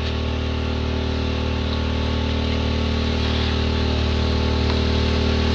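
Pressure washer running steadily, its engine hum under the hiss of the high-pressure water jet blasting dirt out of a driveway drain channel.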